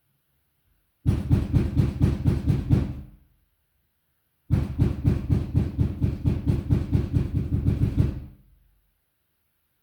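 Rapid knocking on a door, about five blows a second, in two bursts: a short one of about two seconds, then after a pause a longer one of about three and a half seconds.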